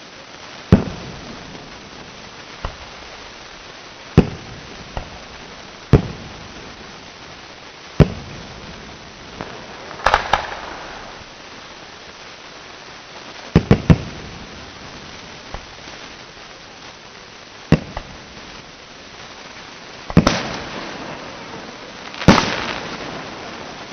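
Aerial firework shells bursting, a sharp bang every couple of seconds. There is a short crackling cluster about ten seconds in, a quick triple bang a few seconds later, and longer trailing tails after the last two bursts.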